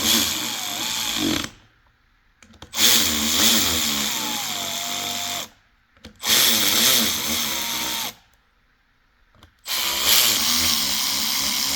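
Cordless drill/driver spinning the crankcase bolts into the joined halves of a 1989 Suzuki RM250 engine case. Four runs, each two to three seconds, with short silent pauses between them; the motor's pitch drops near the end of some runs as the bolt runs down. The bolts are only being run in, not tightened.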